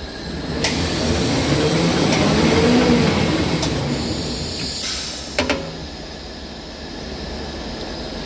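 Toilet paper rewinding machine running a winding cycle: its noise swells over the first few seconds and then eases off. Hissing bursts come in twice, and a couple of sharp clacks sound about five seconds in.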